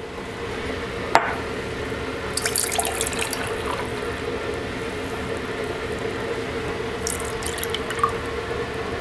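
Strawberry drink poured from a blender jug into drinking glasses: a steady stream of liquid, with a sharp click about a second in and a few light clinks of glass.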